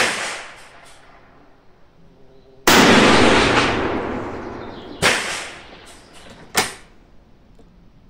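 Gunshots: a sharp bang at the start, another about five seconds in and a short crack near six and a half seconds. The loudest, about two and a half seconds in with a long ringing tail, is a shot from a Mauser rifle in .300 Savage.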